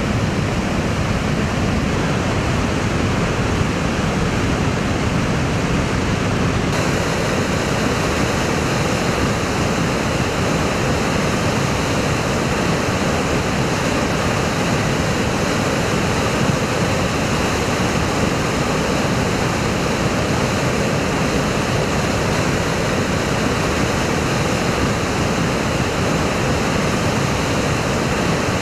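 A lahar, a soupy volcanic mudflow of ash and debris, rushing past with a steady, dense torrent-like noise that turns hissier about seven seconds in.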